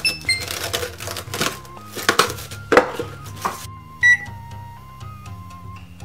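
Plastic cling wrap crinkling and being torn off along its box cutter for the first three seconds or so, over light background music. The music then carries on alone, with one short beep about four seconds in.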